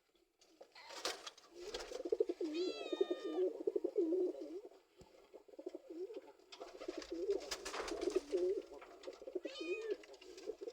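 Pigeons cooing in a steady low warble, with a cat meowing twice, about two and a half seconds in and again near the end.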